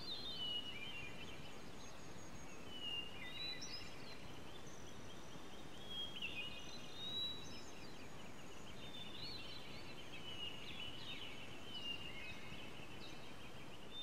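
Birds chirping and calling again and again over a steady background hiss of outdoor ambience.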